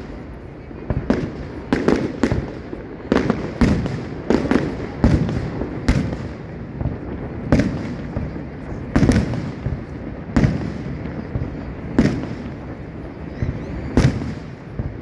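Fireworks display: a string of sharp booms, irregular at roughly one a second and some in quick pairs, each with a short echoing tail, over a steady low background rumble.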